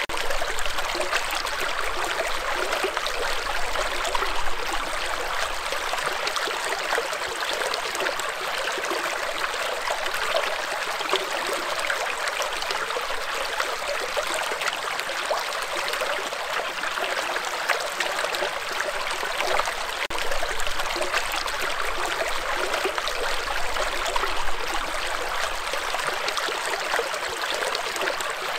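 Shallow rocky stream running over and between boulders: a steady rush of water with fine, constant splashing.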